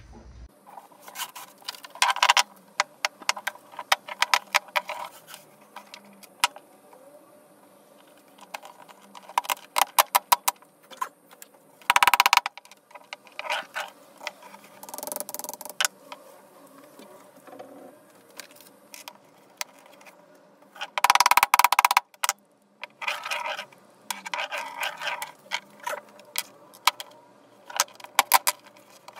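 Irregular knocking and tapping of hand work on PVC rollers, in quick runs of sharp clicks, with a few short louder bursts of rougher noise, one near the middle and one later on.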